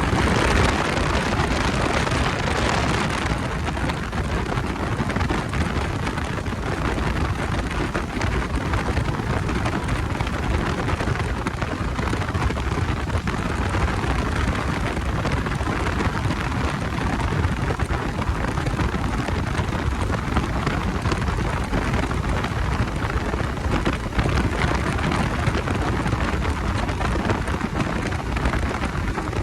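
Steady rushing wind and road noise while riding a Bajaj Dominar 250 motorcycle, a little brighter in the first few seconds.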